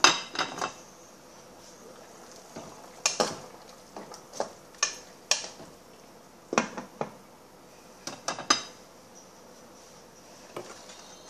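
Dishes and metal utensils being handled: about a dozen sharp clinks and clatters at irregular intervals, each with a short bright ring. The loudest come right at the start and in two clusters in the middle.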